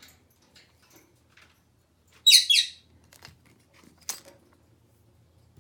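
Eclectus parrot giving two short, high squawks in quick succession, each falling in pitch, about two seconds in, with a sharp click near the four-second mark and a few faint ticks.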